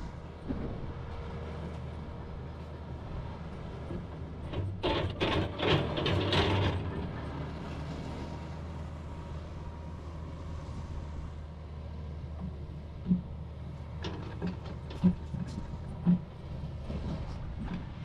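Heavy diesel earthmoving equipment running steadily at low pitch, with a louder rough scraping rumble for about two seconds near the start and several short sharp knocks in the second half, typical of an excavator working its bucket.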